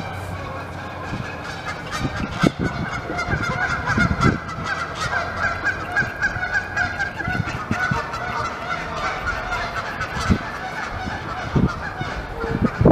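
Three beavers gnawing bark off a wet log: irregular crunching and crackling of teeth on wood. Behind it runs a continuous chorus of animal calls.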